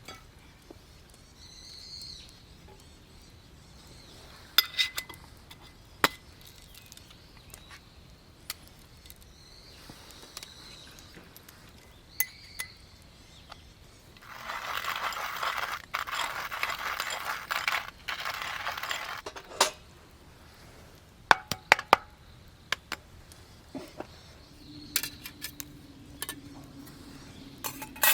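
Camp cookware and utensils clinking and knocking in scattered sharp strikes. A hissing rush lasts about five seconds in the middle.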